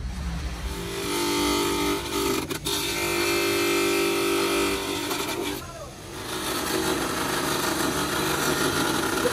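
Electric bench buffing machine running with a steady hum while a plastic tail light lens is polished against its wheel. A little past halfway the sound drops briefly, then comes back rougher and noisier.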